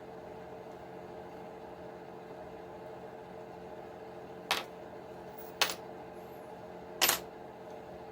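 Three sharp, short metallic clicks from small parts and tools handled while taking apart an aluminium RC transmission, the last the loudest, over a steady background hum.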